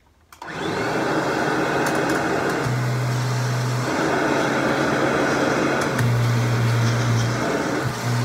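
Kirby G5 upright vacuum cleaner switched on about half a second in, its motor then running loud and steady with a strong low hum.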